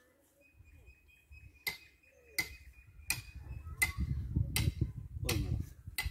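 Electronic water-divining ground detector ticking at a steady pace, a sharp click about every 0.7 s, starting nearly two seconds in. A thin high tone sounds over the first half, with a low rumble beneath.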